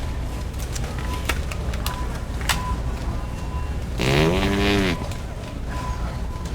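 A prank fart noise, just under a second long and about four seconds in: a buzzy blast that rises and then falls in pitch. It plays over a steady low outdoor rumble and a few sharp clicks.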